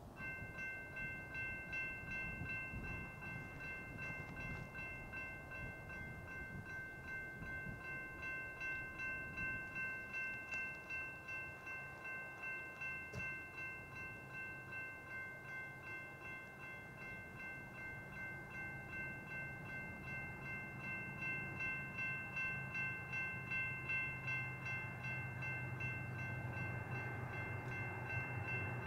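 Railroad grade-crossing warning bell ringing in even, rapid repeats, coming on abruptly as the crossing circuit detects the approaching train. The low rumble of the approaching freight train's diesel locomotives grows under it in the second half.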